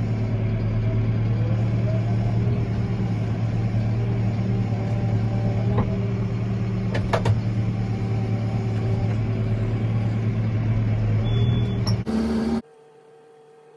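Tractor engine running steadily, heard from inside the cab, with a couple of sharp clicks about seven seconds in and a brief faint high beep near the end. About twelve and a half seconds in, the engine sound cuts off abruptly, leaving a faint steady hum.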